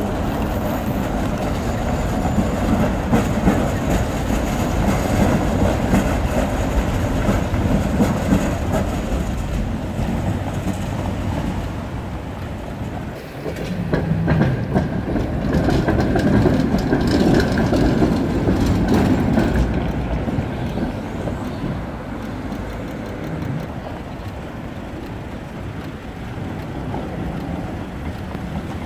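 City trams rolling through a junction of crossing tram rails, with the rumble of the wheels and a run of clacks as they cross the rail joints, mixed with passing car traffic. It grows louder about halfway through as a vehicle passes close by, then settles back.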